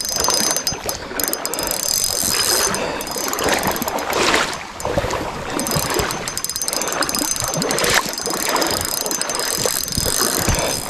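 Fishing reel clicking and ratcheting rapidly while a large hooked trout is being fought, the reel working under the load of the fish.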